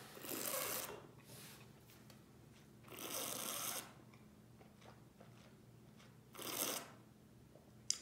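A man breathing out audibly three times, about three seconds apart, each a short rushing breath, as he tastes a red wine.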